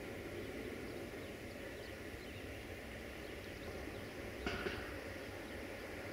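Sulzer 12LDA28 diesel engine of a CFR Class 60 (060-DA) freight locomotive, a steady low rumble as the train approaches slowly. Two sharp knocks come about four and a half seconds in.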